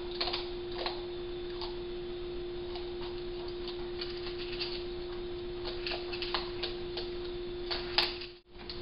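Raccoon eating cat food from a metal bowl: irregular crunching and clicking, with a sharper, louder click near the end. Under it runs a steady electrical hum and hiss.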